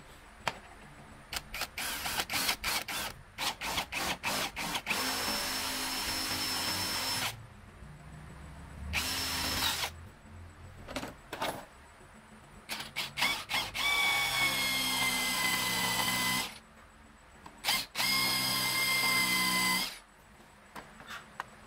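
Electric drill with a step drill bit boring the centre hole of a clamped wooden pulley blank. Short trigger bursts come first, then several runs of two to three seconds each with a steady whine that dips slightly in pitch as the bit cuts.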